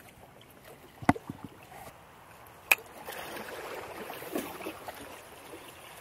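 Faint sea water sloshing, with two sharp clicks about a second and just under three seconds in.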